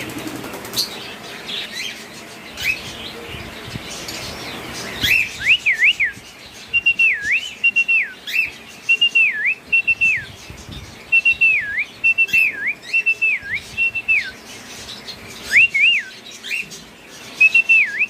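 Lutino cockatiel whistling a repeated tune of short notes that rise and dip sharply, starting about five seconds in. Other cage birds chirp behind it.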